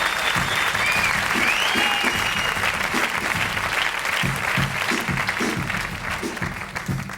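An audience applauding and cheering, with a couple of whistles in the first two seconds, and guitar notes under it. The applause dies down near the end.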